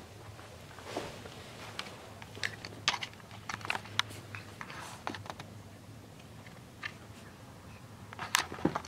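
Irregular soft clicks and crackles of a cat's head and fur rubbing hard through a child's hair, close to the microphone, with a denser run of crackles near the end.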